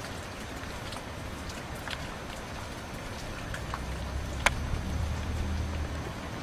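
Steady rain, with scattered drops ticking close by; one sharper drop about four and a half seconds in is the loudest sound.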